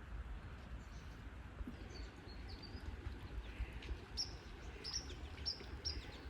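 Small birds chirping: short high chirps start about two seconds in and come every half second or so toward the end, over a steady low rumble.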